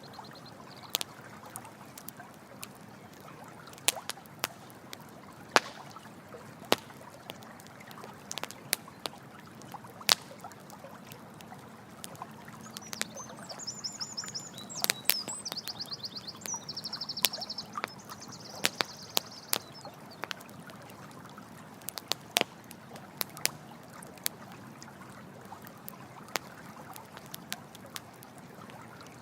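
Campfire crackling with scattered sharp pops over the steady rush of running water. Between about 13 and 20 seconds in, a rapid high-pitched trilling call sounds in several short bursts.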